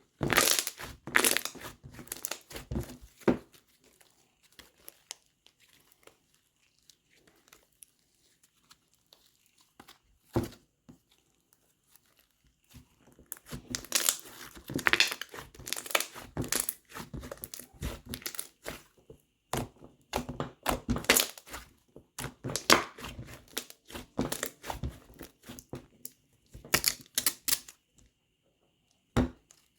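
Slime being squished, poked and stretched by hand, making bursts of crackling, popping clicks with quiet pauses between handfuls.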